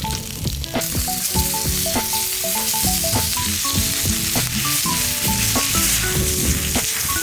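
Food sizzling as it fries in a pan, the hiss starting about a second in, over background music with a light melody.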